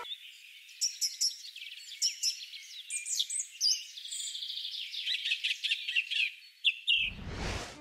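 Small birds chirping and twittering in many short, high calls and trills. A whooshing sweep swells near the end.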